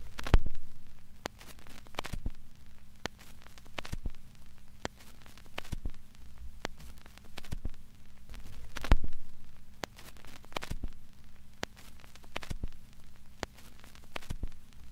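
Irregular soft clicks and crackles, one or two a second, over a steady low hum; the strongest clicks come about half a second in and about nine seconds in.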